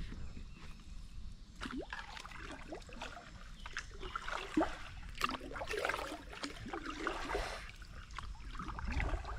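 Kayak paddle strokes: water splashing and trickling off the paddle blades in a run of small plinks and drips, busiest in the middle.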